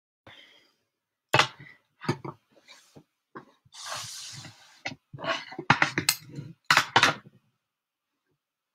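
Handling noise close to the microphone as the recording device is adjusted: a series of sharp knocks and clicks, clustered near the end, with a rubbing, scraping sound lasting about a second around four seconds in.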